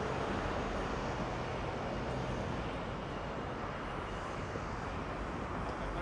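Steady outdoor city background noise with a low, even engine drone underneath.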